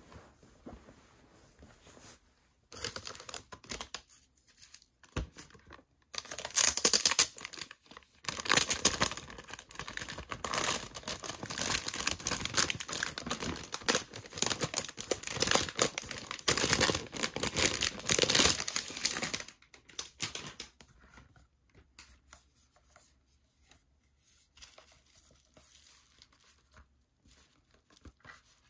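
Clear plastic shrink-wrap being torn open and pulled off a binder, with dense crinkling and tearing for about thirteen seconds. Short rustles come first, and only faint handling sounds follow once it is off.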